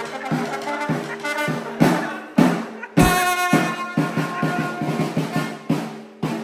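Live band playing an upbeat tune: trombone over strummed guitar, with a steady percussion beat. About three seconds in, a loud accent with a held brass note.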